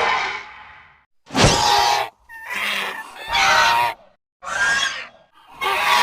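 Designed creature calls for Hatzegopteryx, a giant pterosaur: a series of about five short calls, each under a second, separated by brief silences, following the tail of a longer call at the start.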